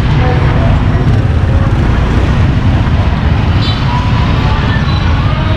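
Scooters and motorbikes running in slow, crowded street traffic: a steady, heavy low rumble of small engines close by.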